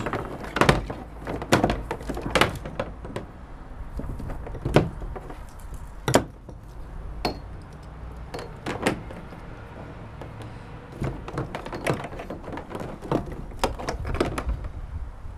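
Handling noise from cables and plastic fittings being pulled out and moved around on a plastic kayak hull: irregular knocks, clicks and thunks, the loudest about five seconds in, over a low steady rumble.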